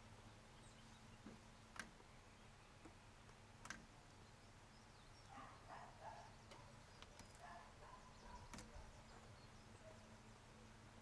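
Near silence: quiet outdoor ambience with a low steady hum, a few faint clicks, and some faint short sounds in the middle.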